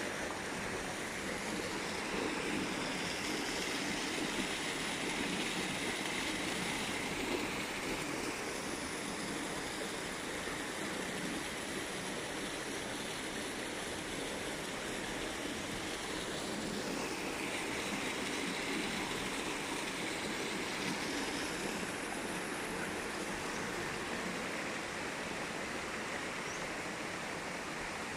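A river flowing: a steady rush of water.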